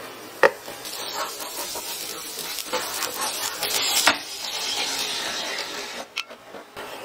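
Chopped onion and garlic sizzling in oil in a nonstick frying pan, stirred with a wooden spatula that scrapes and knocks on the pan. There is a sharp knock about half a second in. Around four seconds in a sauce is poured into the hot pan and the sizzling is at its loudest.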